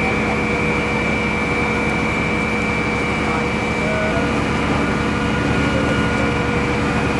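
Steady machine drone from fire service equipment running at the fire scene: an even, loud noise with a few held tones and no change in pace.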